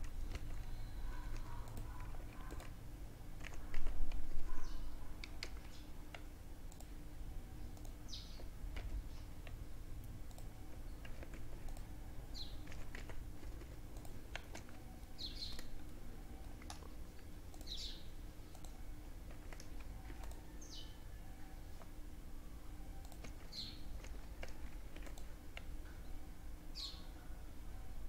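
Soft, scattered computer keyboard and mouse clicks over a low steady room hum, with one louder burst of noise about four seconds in. From about eight seconds in, a bird gives short high falling chirps about every three seconds.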